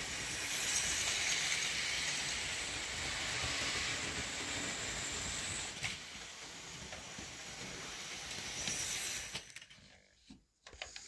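Hornby Smokey Joe OO-gauge model locomotive running on the track: a steady whirring hiss from its small electric motor and wheels on the rails, which drops away to near silence about nine and a half seconds in.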